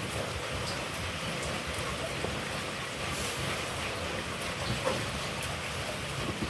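Steady, even hiss in the background, with a few faint taps of a knife and lime halves being handled on a wooden cutting board.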